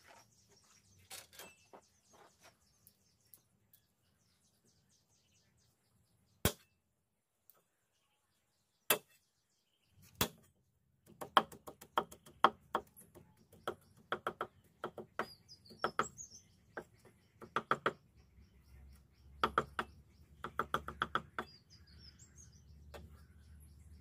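Cleaver chopping garlic on a round wooden chopping block: three single heavy knocks, then quick runs of chopping taps from about halfway on. Birds chirp briefly near the end.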